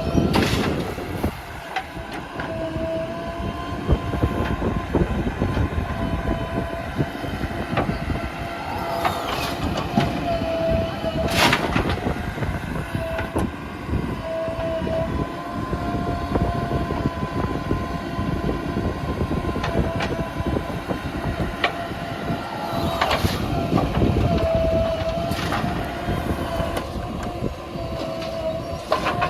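JCB 3DX backhoe loader's diesel engine running under working load, with a high whine that breaks off and returns as the machine works. A couple of sharp knocks stand out over the engine.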